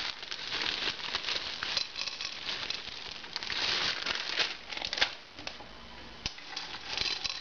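Plastic candy bag crinkling as it is handled, with many small crackles, loudest about halfway through and dying down for a moment near the end.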